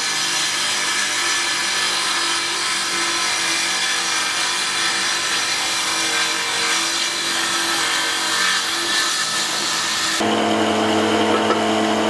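Table saw on a combination woodworking machine running and cutting through a block of wood. About ten seconds in the sound changes to a steadier hum.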